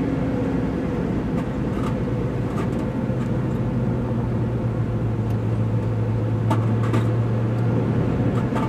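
A car's engine and road noise heard from inside the cabin as it drives: a steady low drone that strengthens slightly about three seconds in, with a few faint clicks near the end.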